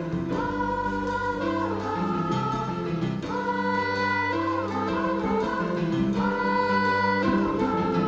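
Children's choir singing long held phrases with vibrato, accompanied by a live band with bass notes underneath.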